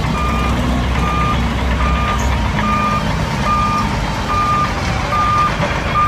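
Dump truck's reverse alarm beeping at an even pace, about once every 0.85 seconds, over the low, steady running of the truck's diesel engine as it tips a load of sand.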